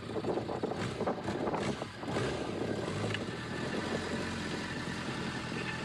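Racing sport motorcycle's engine idling steadily, with rustling and a few knocks in the first two seconds.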